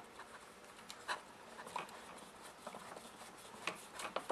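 A screwdriver turning a screw into a chainsaw's handle bracket: faint, scattered clicks and light scraping of the tool tip and screw, about half a dozen small ticks.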